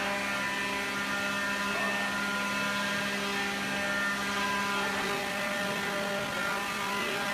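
Electric motor of a homemade wood lathe running at a steady speed, with an even, constant hum.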